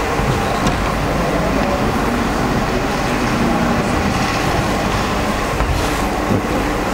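Steady, fairly loud background noise with a strong low rumble and no distinct events.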